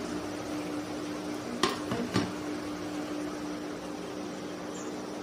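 Steady indoor hum with two light knocks about half a second apart, a little under two seconds in.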